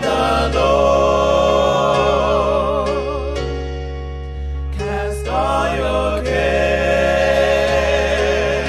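Gospel worship singing: held, wavering vocal lines over sustained electronic keyboard chords and a steady low bass. The voices break off briefly about halfway through, then come back in.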